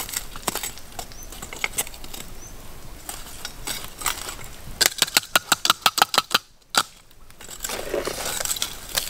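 Metal tongs shifting lumps of burning charcoal, the chunks clinking and knocking against each other and the tongs. About five seconds in comes a quick run of sharp clinks.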